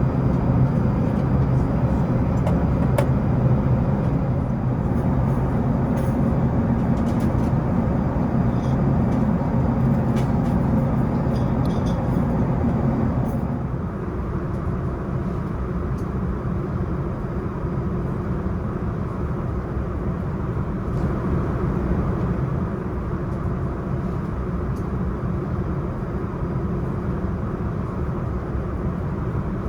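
Steady cabin noise of an Airbus A380 airliner, a broad rushing hum with a low drone. It steps down to a slightly quieter level about halfway through.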